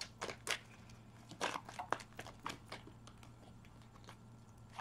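Tarot deck being shuffled by hand: soft, irregular card slaps and rustles that come in loose clusters.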